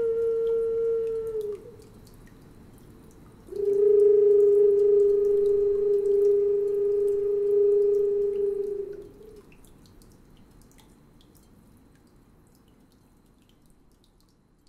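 Flute-like wind instrument holding long, nearly pure notes. The first note ends about a second and a half in, and after a short gap a slightly lower note is held for about five seconds before fading away.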